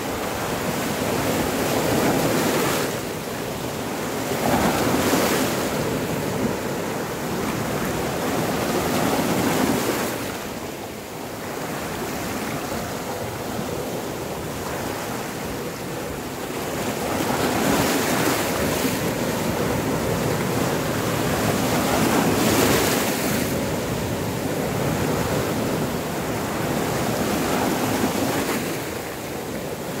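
Sea waves breaking and washing over rocks along the shore. The surf is a continuous rush that swells louder every few seconds as each wave comes in.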